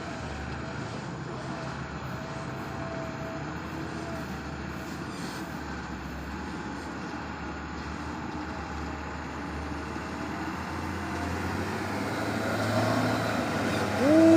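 Diesel engines of approaching Hino 500 Euro 4 trucks running steadily, growing louder over the last few seconds as they draw near.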